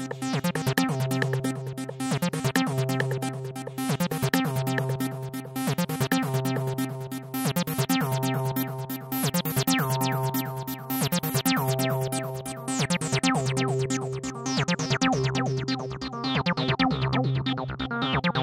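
Electronic music made with ReBirth RB-338 synthesizer sounds: rapid repeating synth notes over a steady low note, swelling and falling about every two seconds.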